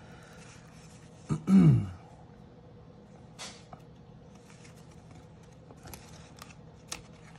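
Cardboard baseball cards being flipped through by hand, with a few faint sharp card clicks. About a second and a half in, a brief vocal sound with falling pitch from the person handling them is the loudest thing.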